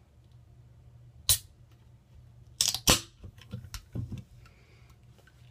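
A carbonated drink can being cracked open by its pull tab: a sharp click about a second in, then a louder pop with a short hiss of escaping gas a little later, followed by a few light clicks.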